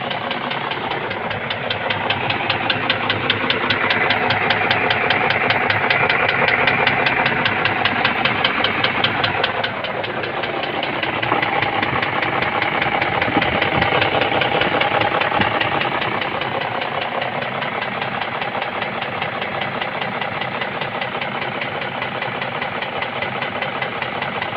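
BMW M62 4.4-litre V8 idling with a rapid, even knock from the left cylinder head. The knock has newly appeared and its cause is unknown to the owner. It grows louder in two stretches.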